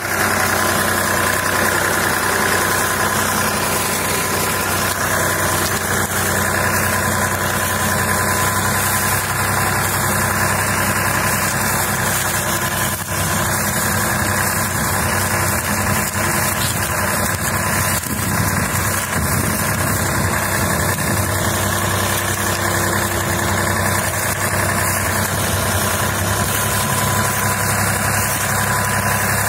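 Sonalika DI-35 tractor's diesel engine running steadily at low revs while hauling a trolley heavily loaded with sugarcane.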